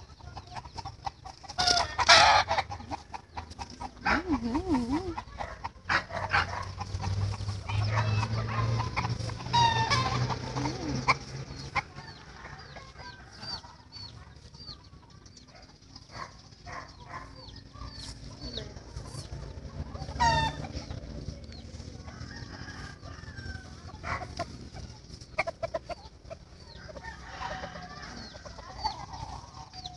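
Chickens clucking, with a rooster crowing now and then, among rustling and sharp knocks from tree branches being handled; the loudest knock comes about two seconds in.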